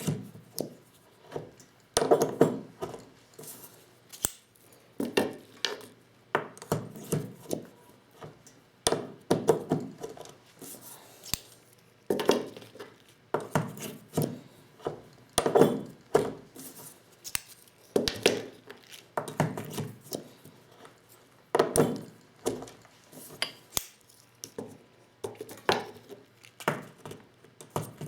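Clinks and knocks of a vintage Lee Loader hand-reloading kit at work on 12-gauge shotgun shells: a cluster of short taps every second or two.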